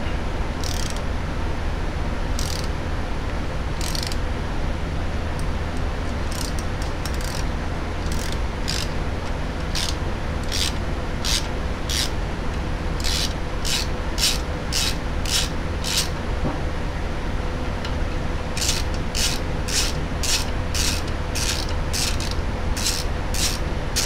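A ratchet handle and socket turning a tap by hand, cutting tapered pipe threads into an aluminum transmission case. Short rasping strokes, spaced out at first and then about two a second, with a pause of about two seconds past the middle, over a steady low hum.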